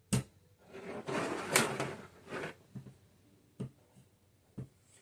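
Handling noise at a work surface: a sharp click, then about two seconds of scraping and rustling, followed by three light knocks.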